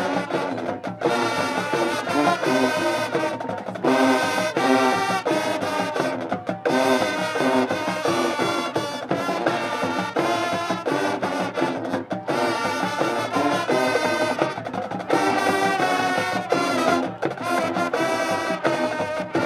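High school marching band playing: full brass chords over drumline percussion, in loud phrases broken by brief pauses.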